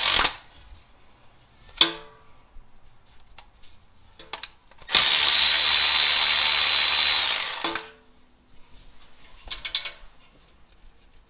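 Milwaukee M12 cordless power tool running steadily for about three seconds with a steady high whine, spinning out an oil pan bolt. Short knocks of tools on metal come at the start, about two seconds in and near the end.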